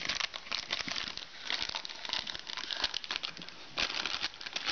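Plastic wrapper of a Pedigree Jumbone dog treat crinkling and crackling in repeated bursts as a dog noses and tugs at it with its mouth.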